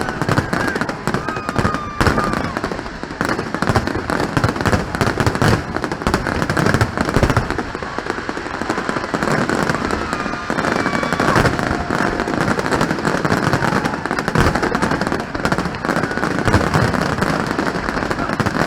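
Fireworks display: a dense, continuous run of bangs and crackling from aerial shells going off close together, with a few faint whistling tones among them.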